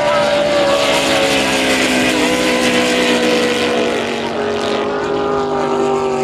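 Racing powerboat engines running at speed in a steady, loud drone whose pitch drifts slowly lower and drops a step about four seconds in.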